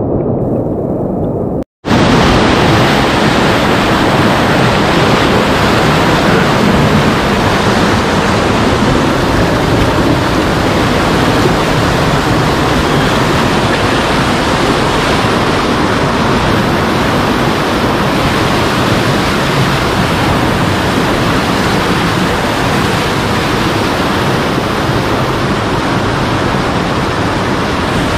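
Swollen river in spate: floodwater rushing and churning over rock close to the microphone, a loud steady rushing noise. It cuts out for an instant about two seconds in, then carries on unchanged.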